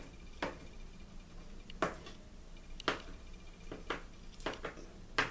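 Knife chopping peeled hard-boiled eggs on a plastic cutting board: about eight sharp, irregularly spaced taps of the blade striking the board.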